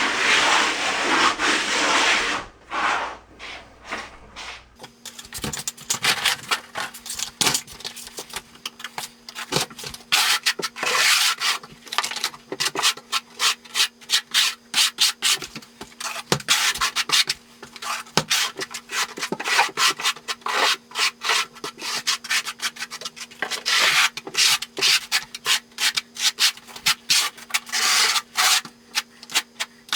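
Wooden float rubbed back and forth over a Ditra Heat membrane, pressing it into fresh thinset: continuous scraping at first, then after a short lull a long run of quick, uneven rubbing strokes, with a faint steady hum under them from about five seconds in.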